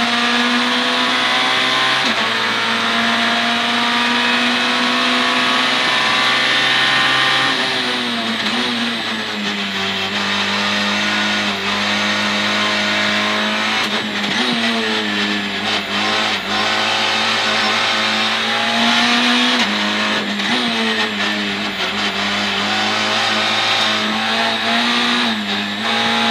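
Citroën C2 R2 Max rally car's four-cylinder engine running hard at high revs, heard from inside the cabin. Its note drops about eight seconds in, then dips briefly and picks up again several times as the driver changes gear.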